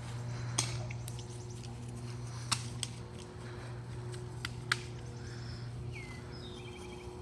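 About five sharp snaps of airsoft guns firing, irregularly spaced, over a steady low hum. A bird chirps near the end.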